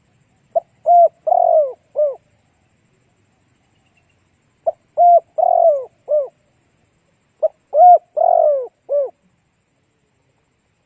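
Spotted dove cooing: three coo phrases about three seconds apart. Each phrase is a short note followed by four arching coos.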